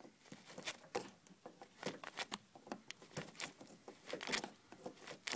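A flat-head screwdriver scraping and clicking against a plastic wiring connector while prying up its red locking tab: many small, irregular clicks and scratches.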